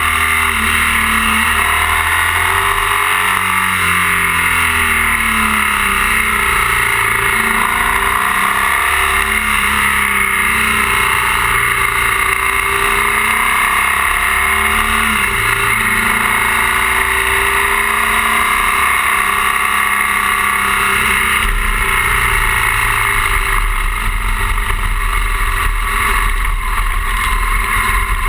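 BMW R 1200 GS flat-twin engine running under way, its pitch rising and falling over a few seconds at a time as the throttle is opened and closed through the bends, under a steady loud rush of wind and road noise. A deeper low rumble grows stronger in the last quarter.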